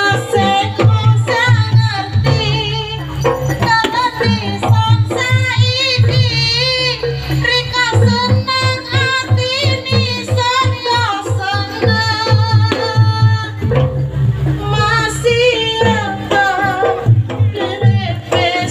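Javanese jaranan accompaniment: a wavering, ornamented melody line, sung or played on a reed instrument, over a steady beat of hand drums.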